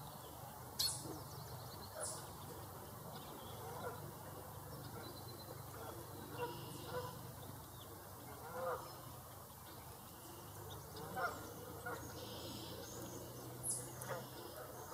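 Mallard hen and her ducklings calling: short calls scattered every second or two over a steady low background hum.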